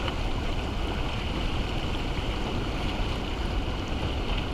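Steady rush of turbulent river water pouring out below an open dam spillway.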